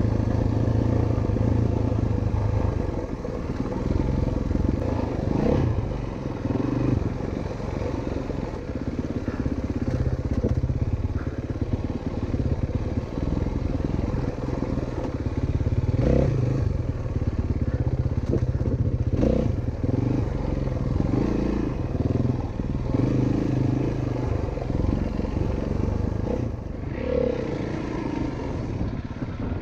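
Single-cylinder four-stroke dirt bike engine running on a trail ride, its note rising and falling with the throttle, with a few knocks along the way.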